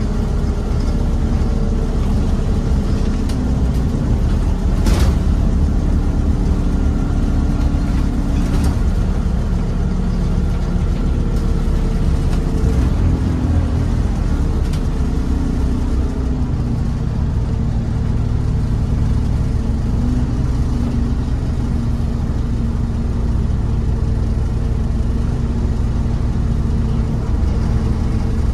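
Scania N230UB OmniCity bus's five-cylinder diesel engine running on the move, heard from inside the passenger cabin, its note rising and falling as the bus changes speed. A sharp click about five seconds in.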